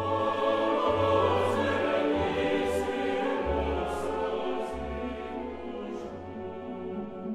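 Classical orchestral music with a choir singing long, held notes.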